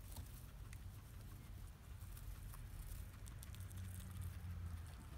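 Guinea pig eating hay, a faint, irregular run of small crunches and crisp rustles of dry grass stems as it chews and pulls at the pile.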